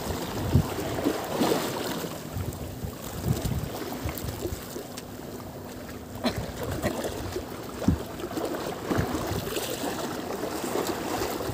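Steady wind and water noise over open water, with a few light knocks and taps scattered through it.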